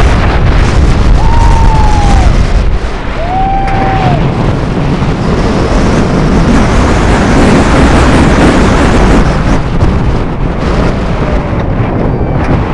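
Loud wind rushing and buffeting the microphone as a steel hyper coaster train plunges down its first drop, with a heavy low rumble under it. Two long held yells from the riders come in the first few seconds.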